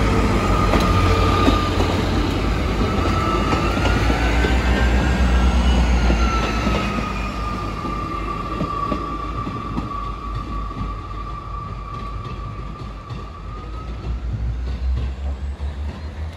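Diesel train passing, its low rumble fading gradually as it moves away, with a steady high whine that wavers slightly in pitch.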